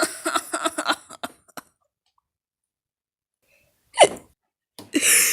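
A person hiccuping: one short, sharp hic with a quickly falling pitch about four seconds in, after a voice trails off in the first second. A loud breathy sound follows near the end.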